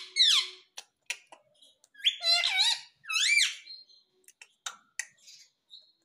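Rose-ringed (Indian ringneck) parakeet giving high-pitched calls in three short bouts: one at the very start, a run of several notes about two seconds in, and one just after three seconds. A few faint clicks fall between the calls.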